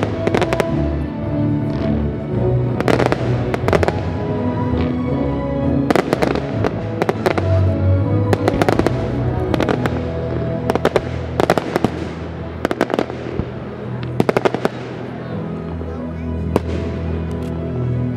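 Fireworks display: aerial shells and comets going off in a string of sharp bangs, some in quick pairs, over music playing throughout.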